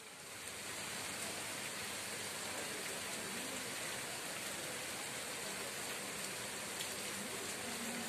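Steady rain falling: a dense, even hiss that swells up over the first second and then holds level, with a few faint drop ticks.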